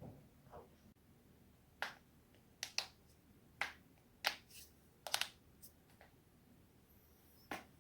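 Spinal joints cracking: a string of sharp, separate pops, about seven of them, two coming in quick pairs.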